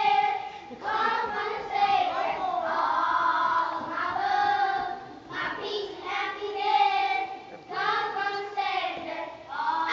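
A group of children singing together in unison, in short phrases separated by brief pauses.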